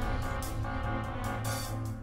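Background music with a steady beat over a held bass note.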